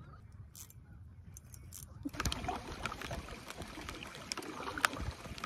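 Paddle strokes in lake water from a small boat: splashing and dripping that start about two seconds in, with a few sharp knocks. The first two seconds hold only a faint low rumble.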